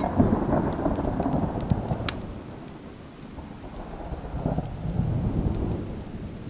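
Deep rumbling noise, loudest at the start, dying down by about three seconds in and swelling again about five seconds in, with scattered faint ticks over it.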